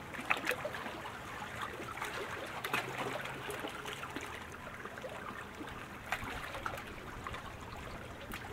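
Water lapping and sloshing around a racing canoe, with a few small, sharper splashes now and then.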